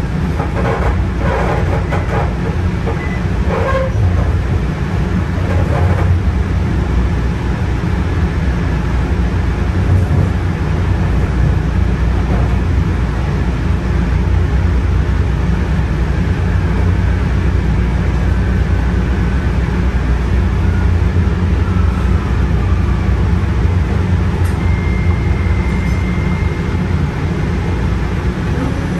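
Kinki Sharyo SLRV light-rail car running along the track, heard from inside the passenger cabin: a steady, deep rumble of motors and wheels. A thin high tone sounds briefly near the end.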